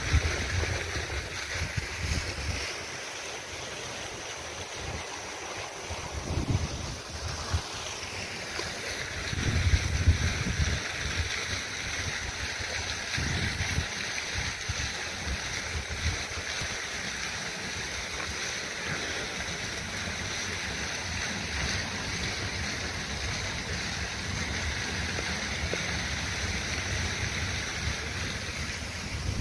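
Wind in a snowstorm: a steady hiss with gusts buffeting the microphone in low rumbles, the strongest about ten seconds in.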